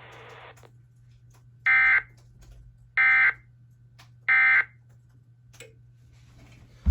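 Three short bursts of EAS end-of-message data tones (the digital "NNNN" squawks) from a NOAA Weather Radio broadcast, about a second apart, marking the end of the alert. A low steady hum runs underneath.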